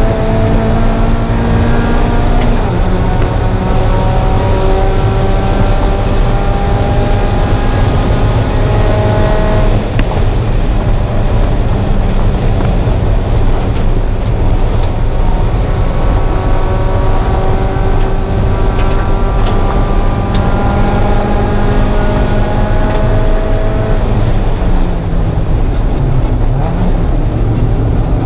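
1994 Mazda Miata's 1.8-litre four-cylinder engine pulling hard on a race track, its pitch climbing steadily, then dropping about ten seconds in; it climbs again and falls away near the end. A heavy low rumble of wind and road noise sits underneath.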